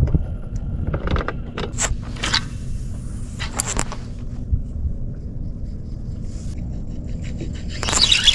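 Steady low rumble and faint hum of a fishing boat on the water, with a few short clicks and scrapes in the first few seconds and a rush of water or wind noise rising near the end.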